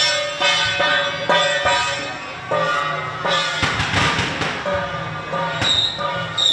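Procession music: drum and percussion strikes on a steady beat, with ringing pitched instrument lines over them and a denser, noisy crashing stretch about four seconds in.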